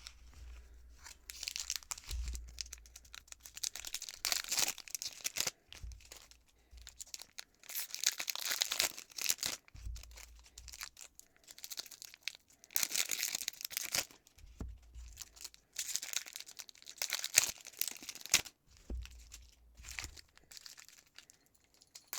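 Foil trading-card booster packs being torn open and their wrappers crinkled, in several separate bouts of crackly tearing, with dull bumps now and then.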